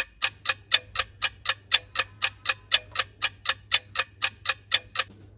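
Clock ticking sound effect marking a countdown: sharp, evenly spaced ticks, about four a second, that stop shortly before the end. A faint low hum runs beneath.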